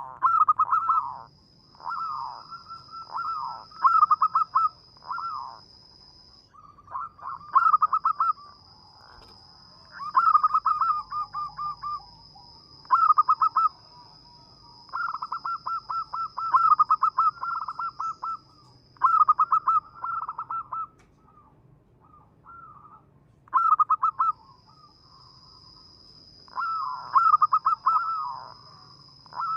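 Zebra dove (perkutut) cooing in repeated short phrases of quick, bouncing staccato notes, a phrase every second or two. A steady high-pitched tone runs behind it for long stretches and breaks off a few times.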